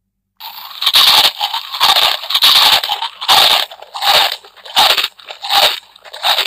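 Sound-book speaker playing a recorded dinosaur eating effect: about eight loud crunching chomps, a little more than one a second, the sound sitting mostly in the upper range as a small speaker gives it.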